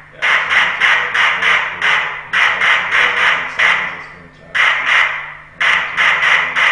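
MNG 300 Scalar Plus white noise generator's speaker putting out masking noise: a rapid run of short noise bursts, about four or five a second, in clusters broken by brief dips, strongest in the range of the human voice. This is the device at work, swamping conversation so that bugs and recorders cannot pick it out.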